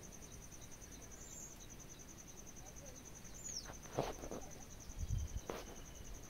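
An insect trilling steadily: a fast, even pulsing of one high note. A short falling chirp comes about three and a half seconds in. A few sharp clicks and low thumps follow around four to five and a half seconds in, and these are the loudest sounds.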